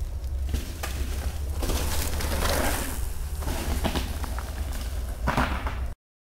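Downhill mountain bike rolling down a loose dirt trail past the camera, its tyres rushing and crunching over dirt and leaves, loudest about two to three seconds in, over a steady low wind rumble on the microphone. The sound cuts off suddenly near the end.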